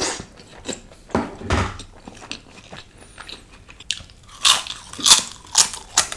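Close-miked eating sounds: a person chewing a mouthful of food, with crisp crunching strokes about a second in and a louder run of them near the end.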